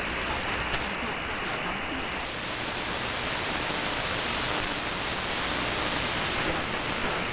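Shortwave receiver in AM mode giving out steady hiss and static, with no programme audible through the noise. About two seconds in, the hiss widens and brightens as the receiver is retuned from 6215 kHz to 6225 kHz.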